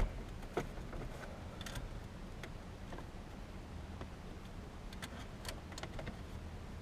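Scattered small clicks and ticks of a car's center console trim being worked loose by hand, with one sharp click at the start and a few more about two seconds apart near the end.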